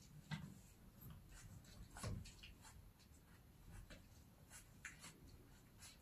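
Faint scratching and tapping of a cat's paws and claws on a door and its low metal handle: a handful of short scrapes and clicks.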